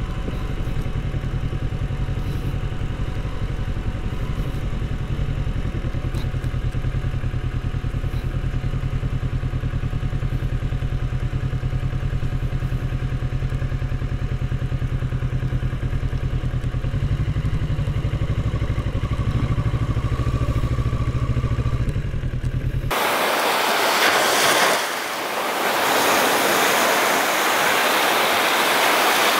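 Kawasaki Z650 motorcycle's parallel-twin engine running at steady low revs while riding a sandy dirt track. About 23 s in it cuts abruptly to waves breaking and washing up on a beach.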